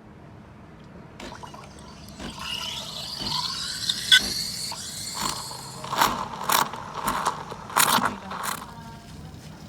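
A 19-bar espresso machine hissing. The hiss starts about a second in and rises with shifting, whistling tones, then breaks into a series of sputtering bursts in the second half, over a steady low hum.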